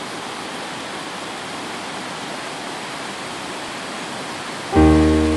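Steady, even rush of a waterfall. Near the end, music comes in with a loud struck chord that rings on.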